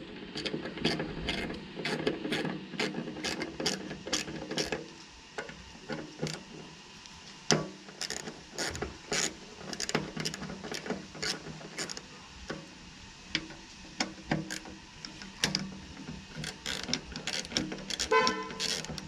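Ratchet handle with an Allen bit clicking in runs of a few clicks a second as it is swung back and forth, loosening the Allen bolts of a motorcycle's fuel-filler cap ring.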